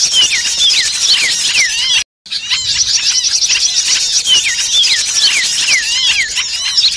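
Dense, agitated chorus of many small songbirds chirping and calling at once, full of quick falling whistled notes: a bird-lure recording of small birds in alarm. The sound drops out completely for a moment about two seconds in.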